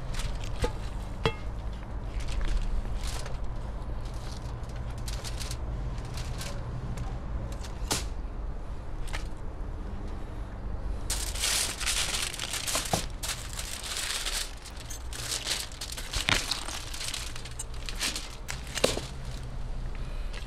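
Aluminium foil crinkling and roast lamb being torn off the bone by hand, with scattered sharp clicks. The crinkling grows denser about halfway through.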